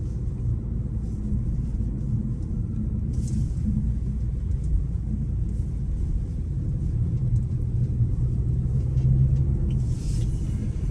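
Steady low rumble of a car driving along a road, heard from inside the cabin, with a brief rise of hiss about three seconds in and again near the end.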